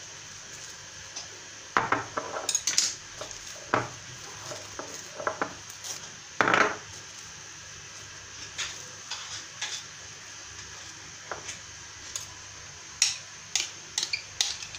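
Scattered clinks and knocks of a glass bowl and kitchen utensils being handled on a countertop, the loudest about six and a half seconds in.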